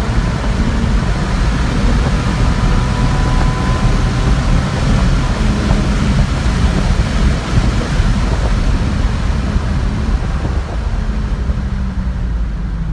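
2018 Dodge Challenger's Pentastar V6 exhaust, with the mid muffler and resonator deleted, droning while the car cruises, heard from inside the car under heavy wind and road rush. The engine note fades into the rush early on and comes back faintly about halfway through and again near the end.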